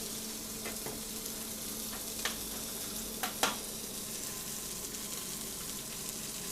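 Lamb rump sizzling skin side down in a hot oiled frying pan, a steady spitting hiss as the fat renders. A few light knocks sound over it, the loudest about three and a half seconds in.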